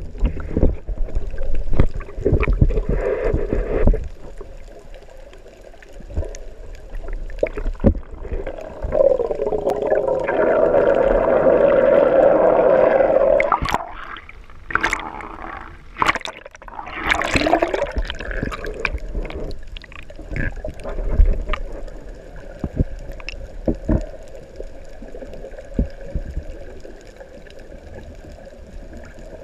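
Water sloshing and gurgling around a camera carried underwater while snorkelling, with a steady hum for a few seconds about a third of the way in. Sharp splashes follow near the middle as the camera breaks the surface.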